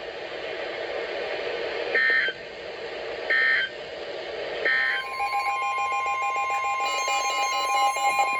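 Emergency Alert System end-of-message signal over radio static: three short, identical bursts of warbling SAME data tones about a second and a half apart. About five seconds in, a steady electronic alert tone starts, the attention signal that opens the next warning.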